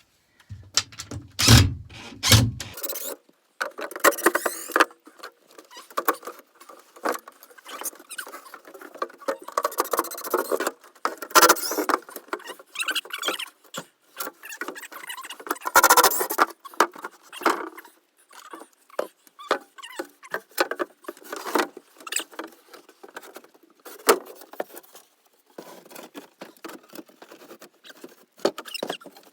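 Hand demolition of wooden boards and plywood: irregular knocks, thuds, scraping and creaking as pieces are hammered and pried apart. Two heavy blows come near the start, with more sharp knocks around the middle.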